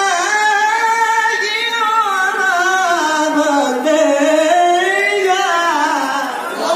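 A male qari's Quran recitation (tilawah) through a microphone: one long, unbroken melismatic phrase that winds up and down in pitch with fine ornaments, closing near the end.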